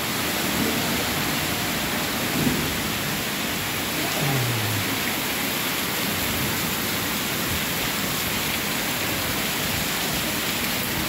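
Heavy rain pouring steadily onto a flooded street and yard, a dense, even hiss.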